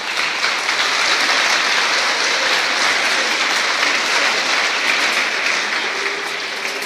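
A large crowd applauding, the clapping swelling at the start and slowly dying away near the end.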